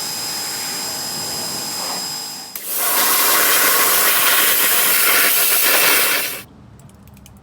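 Ryobi 1900 psi electric pressure washer spraying through a foam cannon, a steady hiss with a thin high motor whine. About two and a half seconds in the spray turns much louder, then cuts off suddenly near the end as the trigger is let go.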